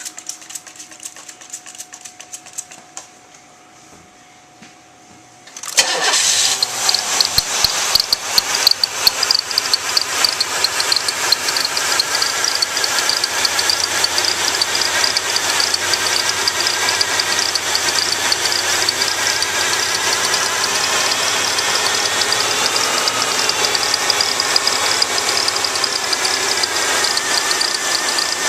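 Cadillac engine with a misfire starts up about six seconds in and keeps running steadily, with a dense fast ticking in its sound. Before it starts there are only a few faint clicks.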